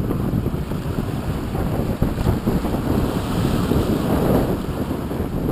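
Wind buffeting the microphone over the rush of a sailboat's foaming wake churning past the stern in choppy open water.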